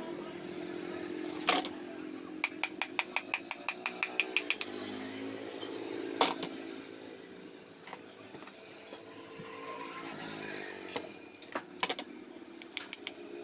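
A steady engine hum that shifts in pitch twice. Over it comes a quick run of about eight clicks a second for roughly two seconds, along with a few sharp knocks.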